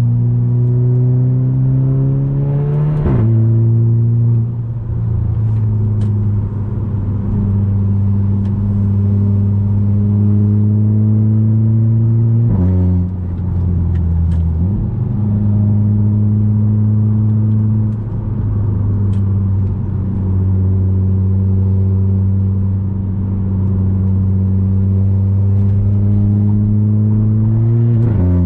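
Audi A3 8P 2.0 TFSI turbocharged four-cylinder with an aftermarket 2.5-inch downpipe and cat-back exhaust, pulling under load with its pitch climbing, then dropping sharply about three seconds in at a gearchange with a short crack: the S tronic upshift 'fart' of the open exhaust. It then settles into a steady cruising drone, with further gearchanges about twelve seconds in and right at the end.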